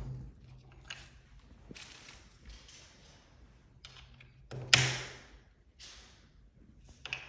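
Small metal door hardware being handled and fitted: scattered light taps and clicks, with one sharp click a little past halfway.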